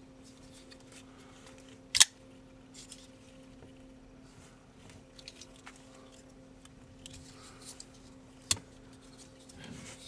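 Smith & Wesson First Response rescue knife flicked open on its assisted-opening mechanism with one sharp metallic click, then a few faint handling ticks. Near the end the blade is folded shut with a second, softer sharp click.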